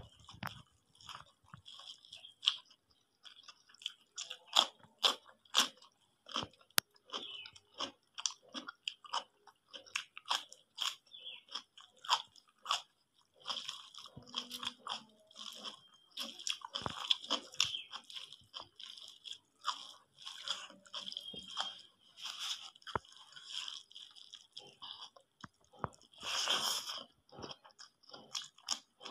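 Close-miked chewing and crunching of a mouthful of rice, egg curry and raw green chillies, with quick, irregular bites and mouth clicks.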